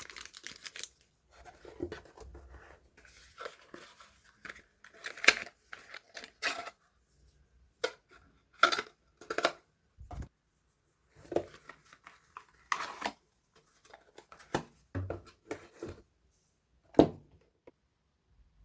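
Soap packaging being unwrapped by hand: scattered bouts of tearing and crinkling wrapper, with short taps and clicks in between.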